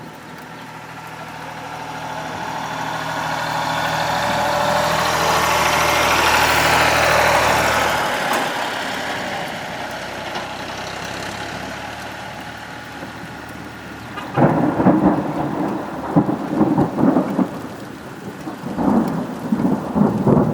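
Thunderstorm: rain falling with rolling thunder. A long rumble swells to a peak about six seconds in and fades away, then a sudden, louder thunderclap breaks about two-thirds of the way through and rumbles on in waves.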